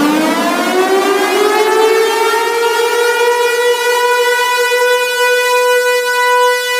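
Civil defense siren sounding: its pitch climbs over the first two seconds or so as it winds up, then holds one steady tone.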